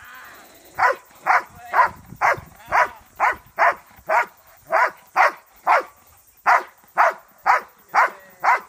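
Dog barking at a protection-training helper who is threatening it with a stick. It gives sharp barks about twice a second, with a short break near the middle: the guarding bark after letting go of the bite.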